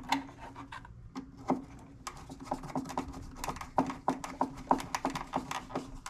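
Small irregular metallic clicks and taps of wires and a screwdriver being worked onto the terminal screws of an electric water heater element, coming more often in the second half.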